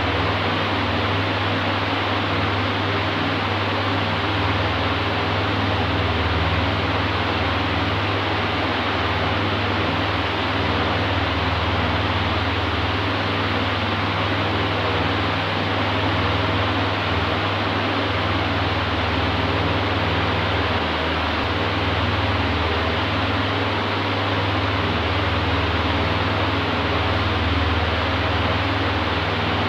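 Oscillating electric fan running steadily: an even rush of air over a low motor hum.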